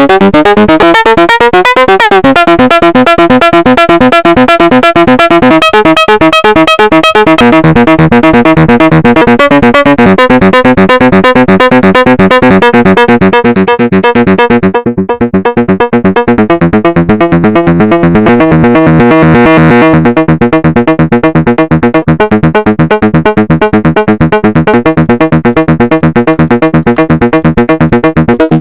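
Make Noise 0-Coast analog synthesizer playing a rapid arpeggiated sequence of repeating notes, loud. The pitch glides upward over the first couple of seconds, and about fifteen seconds in the tone turns darker as the upper frequencies drop away.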